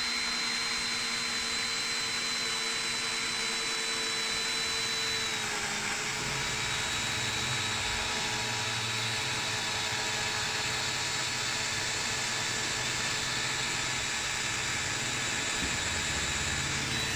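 Ken 12V cordless drill driver running steadily under load with a high motor whine as it drills with a drill bit. The pitch drops slightly about five seconds in as the bit takes more load, and the motor keeps going without stalling.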